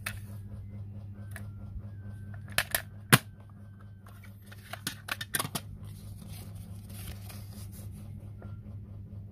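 Clear plastic cassette case clicking and clattering in the hands, with a sharp snap about three seconds in and more clicks near the middle, then the paper insert rustling as it is unfolded, over a steady low hum.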